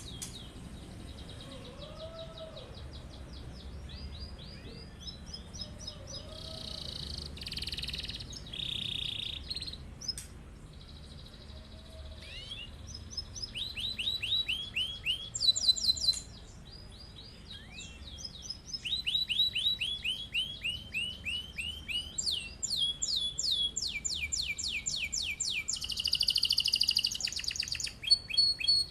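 Domestic canary singing in long rolls: fast runs of repeated sweeping notes, broken by short buzzy trills. It grows louder and denser in the second half.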